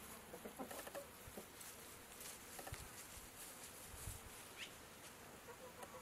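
Faint farmyard sound of domestic chickens foraging: scattered soft ticks and a single short rising chirp about two-thirds of the way in, with hen clucking starting at the very end.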